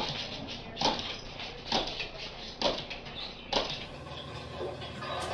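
A large dog jumping up and down on a tiled kitchen floor, its paws landing in sharp thumps about once a second.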